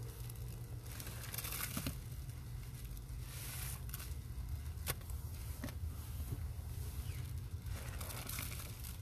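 Gloved hands pulling apart and squeezing thick wet powder paste and a paste-soaked sponge, making wet tearing, squelching sounds in several short bursts with a sharp click near the middle. A steady low hum runs underneath.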